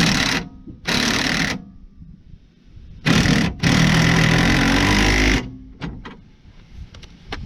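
Impact wrench hammering in four bursts, three short ones and a last one about two seconds long.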